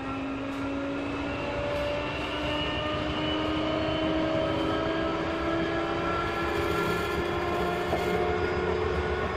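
Sotetsu 8000-series electric train 8701F heard from on board: the traction motor whine climbs steadily in pitch as the train gathers speed, over the rumble of wheels on the rails.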